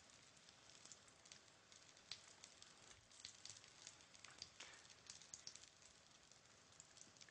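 Faint sizzling of olive oil in a hot pan, with scattered small crackles and pops, as a falafel-wrapped hard-boiled egg fries.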